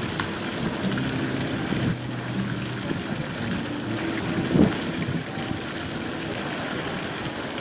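Outdoor street noise with a motor vehicle's engine running, and one short louder sound about four and a half seconds in.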